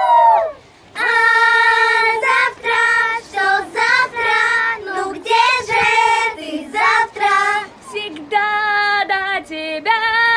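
A child singing a melody in phrases of held notes with short breaks between them. The voice starts after a brief pause about a second in.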